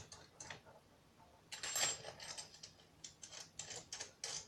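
Small metal hardware clicking and clinking as nuts are fitted onto a U-bolt on a folding table leg, with a cluster of clinks and a brief metallic ring about two seconds in.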